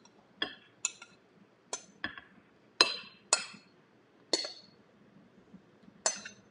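Glass mixing bowl clinking against the rim of a stainless steel pot-in-pot pan as soaked bread is tipped out of it: about eight sharp, irregularly spaced clinks with a short ring.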